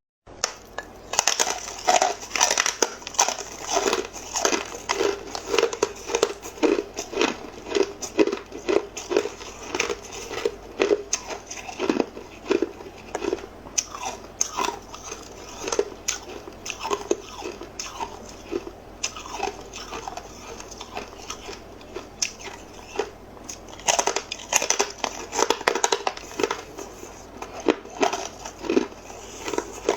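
Hard ice being bitten and chewed close to the microphone: a dense run of sharp crunches, busiest in the first dozen seconds and again near the end.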